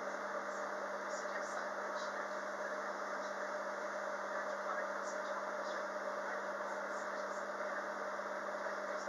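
Interior noise of a Queensland Rail electric multiple unit carriage: a steady hum with a constant low tone underneath, unchanging throughout.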